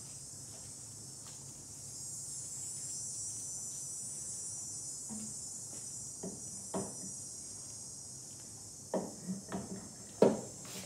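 Snow thrower wheel being fitted back onto its greased axle shaft by hand: a few short knocks and clunks of hub and tyre against the shaft, the loudest near the end, over a steady high-pitched hiss.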